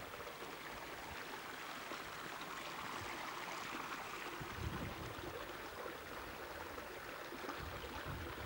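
Shallow river water running over rocks, a steady hiss, with a couple of brief low buffets of wind on the microphone.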